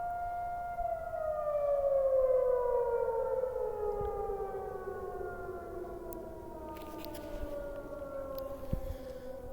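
A 1942 Federal Electric Model 5A siren with cast iron rotor and stator, sounding its noon blast at about three-eighths of a mile. It holds a steady tone, then begins winding down about a second in, the pitch gliding smoothly lower. A few faint clicks and a thump sound near the end.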